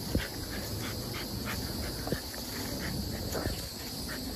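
Steady high-pitched insect buzz and repeated chirping from the trees, with a few soft scuffs of feet on dry leaf litter.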